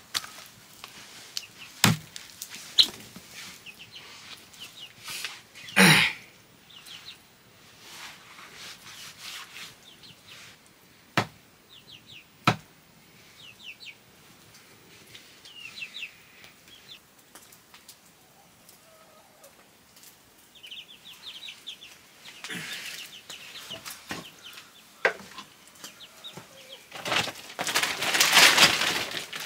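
Raw chicken being chopped on a wooden block with a heavy knife: single sharp knocks of the blade, several seconds apart, the loudest about six seconds in. Chickens cluck between the chops. Near the end a plastic sack is gathered up with a loud rustle.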